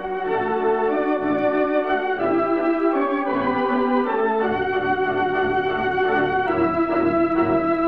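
Wurlitzer theatre organ playing a slow melody over held chords that change every second or so. The recording dates from 1926–1933 and has a narrow, dull top end.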